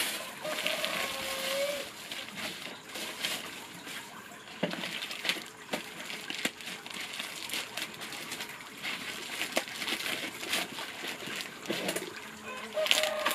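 Plastic bags and a plastic mailer envelope crinkling and rustling as they are handled and torn open, with many short irregular crackles.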